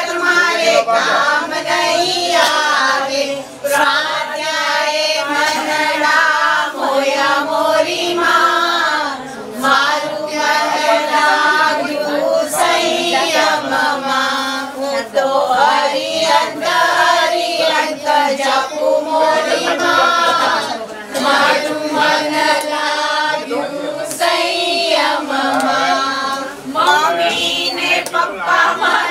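A group of women singing a devotional song together in continuous sung phrases.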